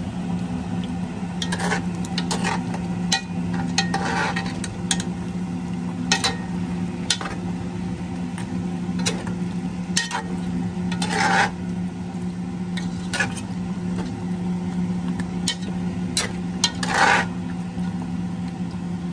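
Spoon stirring chicken pieces in coconut milk in a stainless steel pot, with short knocks and scrapes against the pot. Longer scrapes come about four, eleven and seventeen seconds in, over a steady low hum.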